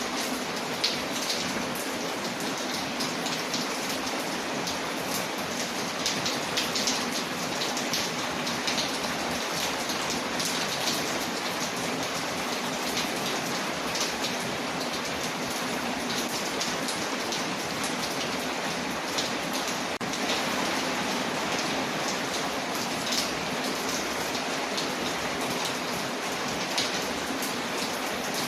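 Steady rain falling on a window, layered with the small clicks and pops of a crackling wood fire.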